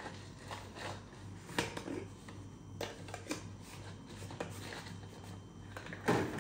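Dry, crisp rustling and light clinks of dried red chillies being handled in an aluminium plate, in a series of short sharp handling sounds with a louder knock near the end.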